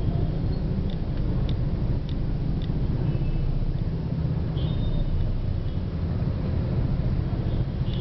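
Busy city street at night: a steady rumble of road traffic and motorbikes, with a faint short high toot about four and a half seconds in.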